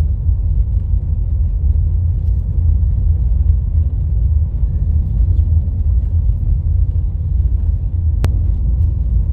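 Steady low rumble of a car driving, heard from inside the cabin: engine and road noise. A single sharp click sounds near the end.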